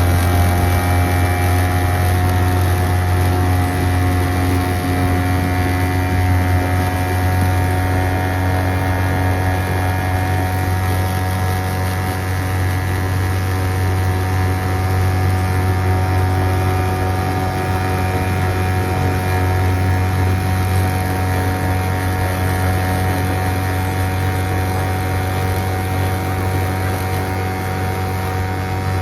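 Boat motor running steadily under way, its pitch easing down slightly in the first few seconds and then holding even.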